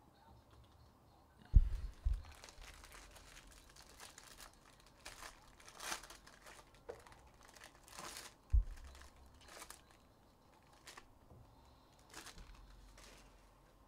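Trading-card pack wrappers being torn open and crinkled, in irregular crackling handfuls. Three dull thumps about a second and a half, two seconds and eight and a half seconds in, the first the loudest.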